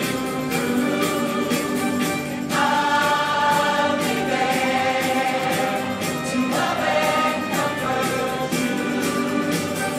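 A group of people singing together in chorus with musical backing, holding long notes.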